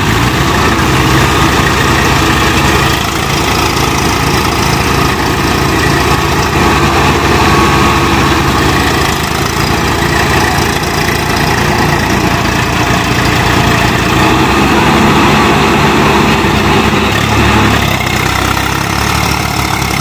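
Tractor diesel engines of an Eicher 480 and a Mahindra Arjun 605 running steadily, close by and loud, as one tractor hauls the other out of deep mud on a tow rope.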